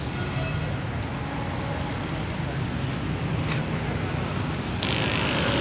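Open-air market ambience: a steady low rumble with faint voices of people around, growing a little louder and brighter near the end.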